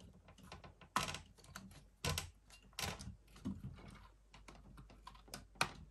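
Irregular light clicks and taps from hands working on the plastic parts of a digital piano's keyboard assembly as it is being detached, with a few louder clicks about one, two and three seconds in.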